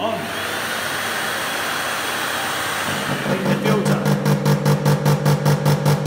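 Starmix IS AR-1425 EHP vacuum cleaner switched on: the motor starts abruptly and runs steadily with a rush of air. After about three seconds a rapid pulsing buzz sets in, about five pulses a second: the electromagnetic filter-shaker vibrating the filter.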